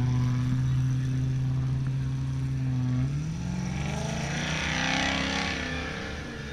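Off-road buggy engine running at steady high revs, then revving up and down under load as it climbs a sand slope, fading near the end.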